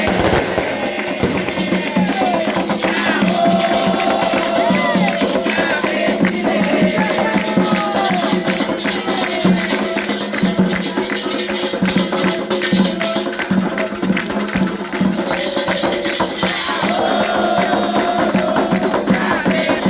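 Candomblé ceremonial music for Xangô: fast, dense percussion with shaken rattles, and voices singing over it.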